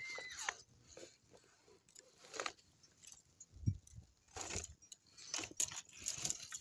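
Dry twigs and brush being handled and snapped over a small kindling fire, giving irregular crunches and clicks, with a short high chirp at the start and a dull thud near the middle.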